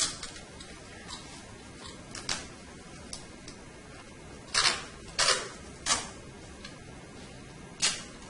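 Staple gun firing staples through pool-table cloth into the wooden backing: about six sharp snaps at irregular intervals, several with a brief falling ring and the loudest in the second half, with a few fainter clicks between them.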